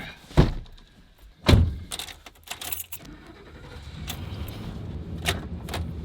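Keys jangling with two loud thumps and some clicking, then a vehicle engine running with a low steady hum that grows from about halfway through.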